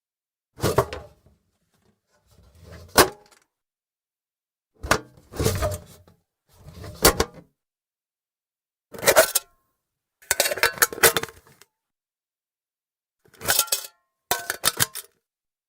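Tin lunch box with a metal lid, opened and shut over and over. Nine short bursts of thin-metal clanks and rattles, some a single clack and some a quick run of clicks, with dead silence between them.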